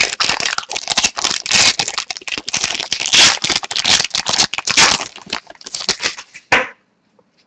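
Wrapper of a Rookie Anthology hockey card pack being torn open and crinkled, a dense crackling that stops with a short thump near the end.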